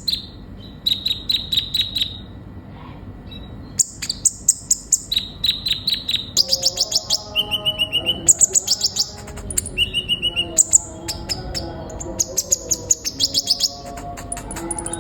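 A kolibri ninja sunbird singing: fast runs of sharp, high, repeated chirps that jump between different pitches from one run to the next.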